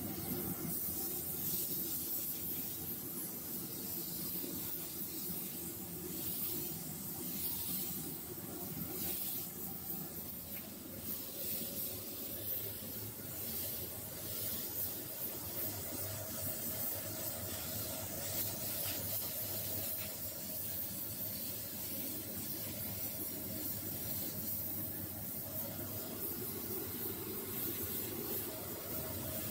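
Gravity-feed air spray gun hissing as it sprays paint, the hiss surging and easing with each pass, over a steady low hum.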